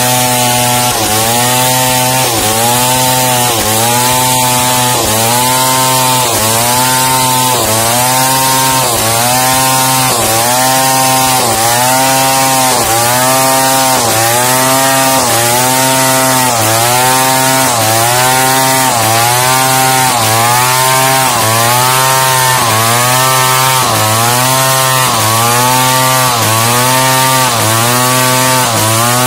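Large two-stroke chainsaw ripping a pelawi timber beam lengthwise into boards, running near full throttle under load. Its pitch dips and recovers about once a second as it works along the cut.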